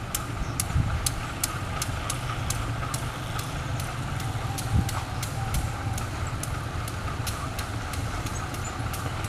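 A CC 201-class diesel-electric locomotive's engine running at low throttle, a steady low drone, while it stands or creeps during shunting. Faint regular ticks, about three a second, run over it.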